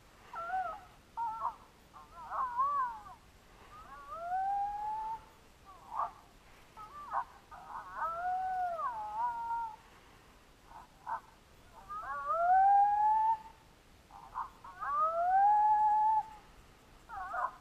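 Coyote howls and yips: long rising, wavering howls mixed with short sharp yips, coming in repeated bursts.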